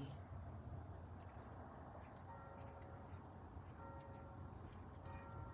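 Crickets chirping faintly over a low steady hum.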